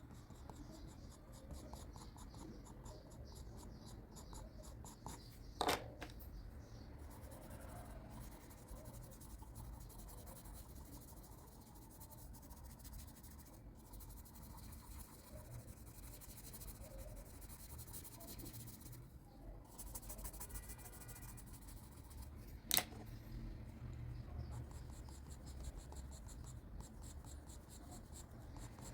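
Pencil scratching and shading on paper, faint and continuous, broken by two sharp taps: one about six seconds in and another about seventeen seconds later.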